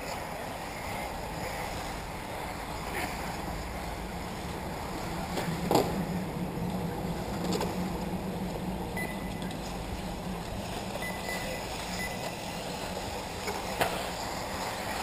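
1/8-scale electric off-road RC buggies racing on a dirt track, heard as a steady hiss of motors and tyres. A sharp knock comes about six seconds in and another near the end.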